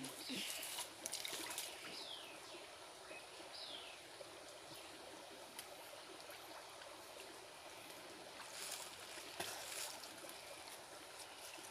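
Faint, steady trickling and lapping of water at a river bank, with a few short, faint falling chirps in the first few seconds.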